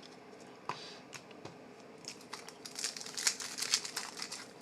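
Crinkling and tearing of a foil trading-card pack wrapper being opened: a few scattered crackles at first, then dense crinkling that gets louder over the last couple of seconds.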